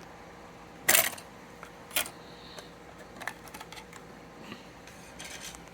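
Plastic clicks and knocks from a Sony D-5A Discman portable CD player being handled: a loud clatter about a second in, a sharp click a second later, then scattered lighter clicks.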